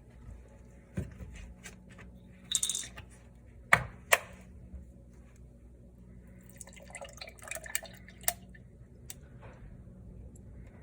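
Almond milk being poured into a blender jar, with a couple of sharp knocks and some light clatter of containers being handled.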